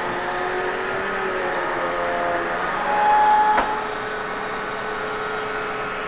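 Eureka Whirlwind LightSpeed bagless upright vacuum cleaner running, a steady motor whine whose pitch shifts a little. About three seconds in it swells louder briefly and ends with a sharp click.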